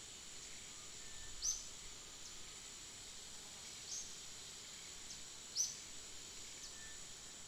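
Steady high-pitched insect drone with a bird giving short, sharp, high chirps three times, each dropping slightly in pitch.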